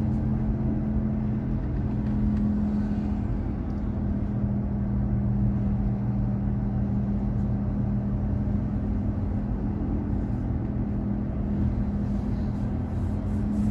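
Car engine and road noise heard from inside the cabin while driving at a steady speed: a steady low drone.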